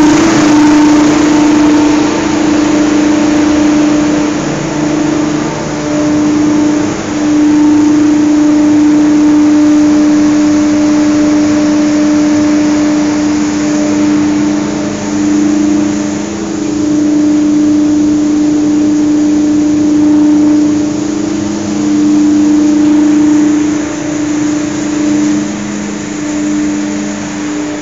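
Biomass gasifier plant machinery running: a loud, steady hum with a strong droning tone and a lower second tone, dipping and swelling a little now and then.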